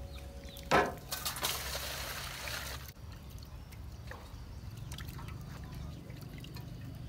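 Water splashing into an aluminium basin, with a sharp knock near the start and a burst of splashing for about two seconds after it. Then fainter trickling and dripping as a hand works in the shallow water.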